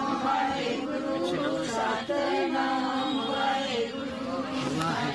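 Voices chanting in a sung devotional recitation, held notes rising and falling, with talk mixed in.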